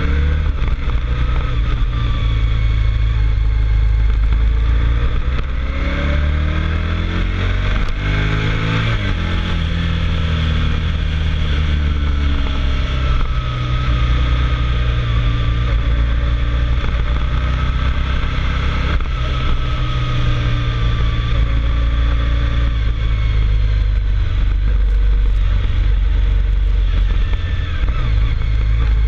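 Motorcycle engine pulling hard up a climb. About six seconds in the revs rise for a few seconds, then drop and settle again.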